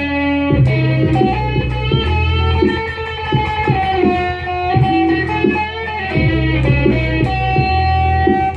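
Stratocaster-style electric guitar played as long held lead notes that bend slowly in pitch, with low sustained notes underneath.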